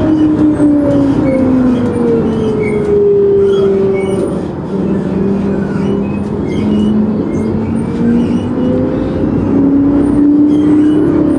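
A vehicle's motor drone whose pitch falls slowly as it slows down, then rises again as it picks up speed, over a steady road rumble.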